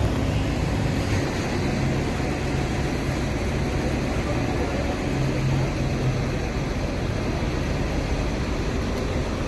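Steady outdoor street noise: a low rumble of traffic and vehicle engines, with a slightly stronger low hum about five seconds in.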